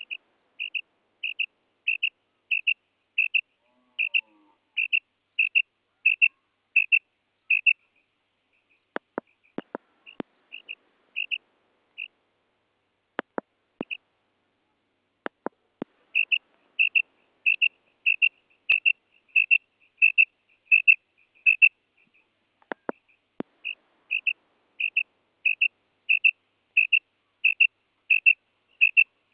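Female quail calling: a steady series of short, high, clipped notes, about three every two seconds, broken by a couple of pauses in which a few faint clicks are heard.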